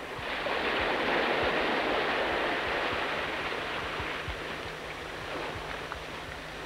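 Sea surf washing against coastal rocks: a wave surge swells just after the start and slowly ebbs away.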